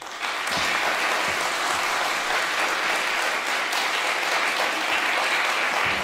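Audience applauding in a concert hall, breaking out at once and holding steady.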